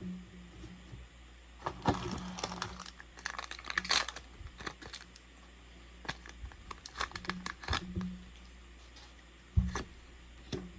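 Foil trading-card booster pack wrapper crinkling and tearing as it is opened, with irregular crackles for several seconds, then a soft thump near the end.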